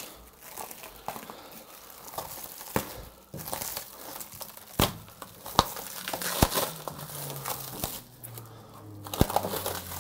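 Clear plastic stretch wrap being pulled and peeled off a large resin 3D printer, crinkling and crackling, with several sharp snaps as it comes free.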